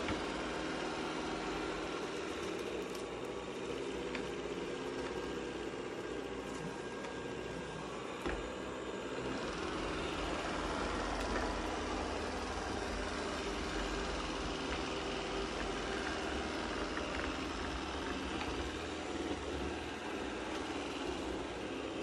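Shark IQ RV1001 robot vacuum running steadily as it cleans, a continuous even whirring noise, with a brief knock about eight seconds in.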